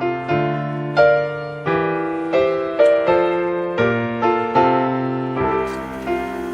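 Background music: piano playing a steady run of notes, roughly one every three quarters of a second.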